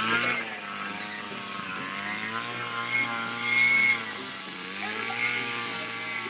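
A motor or engine running steadily, its pitch drifting slowly up and down.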